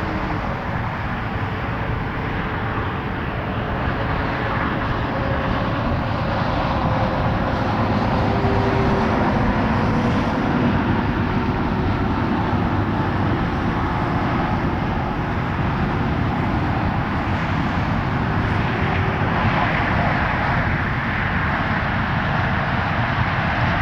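Steady road traffic noise, a continuous hum of passing vehicles.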